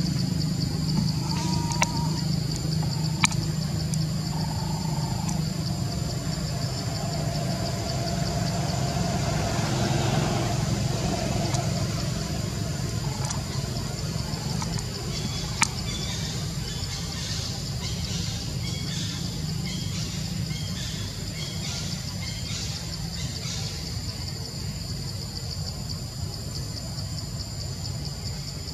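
Steady outdoor ambience: a continuous low engine-like rumble under an unbroken high-pitched insect drone. A few soft chirps come in the middle, and there are a couple of faint clicks.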